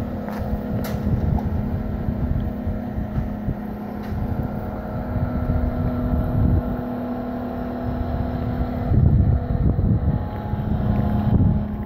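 Steady mechanical hum with a constant low tone, which stops about nine seconds in. Wind buffets the microphone throughout and gusts harder near the end.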